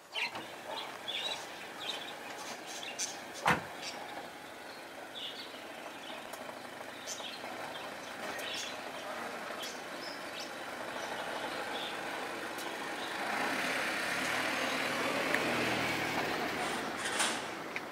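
A car door shuts with a single knock about three and a half seconds in. Faint chirps follow, and then a car's engine and tyres grow louder as the car pulls out, at their loudest near the end.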